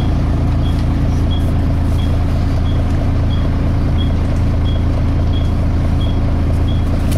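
Volvo B7TL double-decker bus's engine and cooling fan running with a steady low drone, with a little high-pitched screech repeating evenly, about three every two seconds.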